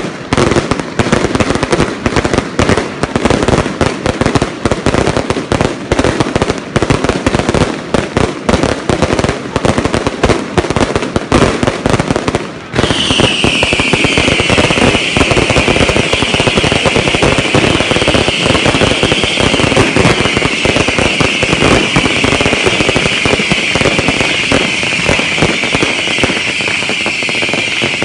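Fireworks going off in a dense, rapid string of bangs and crackles. About halfway through, a loud continuous high-pitched hiss sets in and holds over the crackling.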